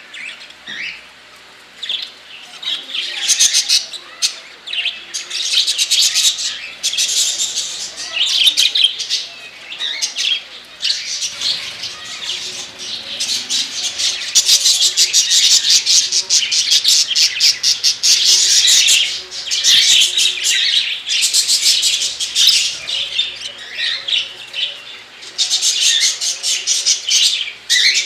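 A flock of caged pet budgerigars and cockatiels chirping and chattering continuously in dense, rapid high-pitched twitters, with a brief lull about a second in.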